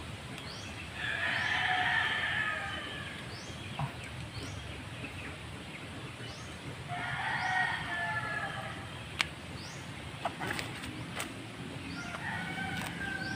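A rooster crowing twice, each crow about two seconds long, with a third crow starting near the end. A faint high chirp repeats about twice a second, and a few sharp clicks come in the last third.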